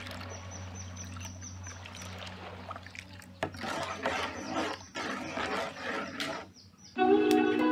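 A ladle stirring a thick liquid in a metal pot, with irregular sloshing and scraping, louder in the second half. It stops briefly about seven seconds in.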